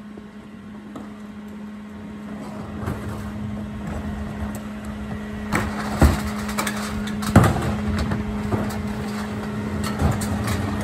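Rear-loader garbage truck's engine and hydraulics running with a steady hum that grows louder, as recycling is dumped and packed in the hopper, clattering in several sharp crashes from about five and a half seconds in.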